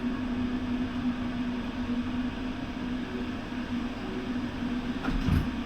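Steady drone of a ship underway: a constant machinery hum under a rushing noise. A brief low thump with a click comes near the end.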